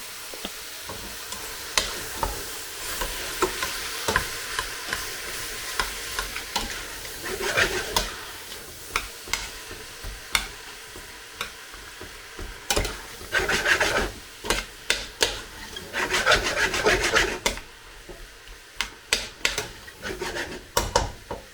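Chicken and peppers frying in a pan while a utensil stirs them, scraping and knocking against the pan over a steady sizzle. There are many short knocks and a few longer bouts of scraping through the middle and later part.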